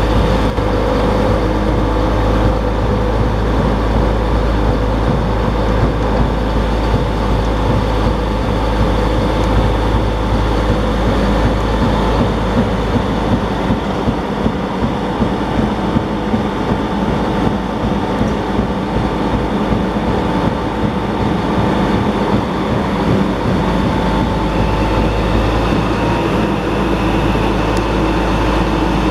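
Terex Finlay tracked mobile crusher running, a steady loud mechanical drone with a deep rumble and a few steady whining tones over it.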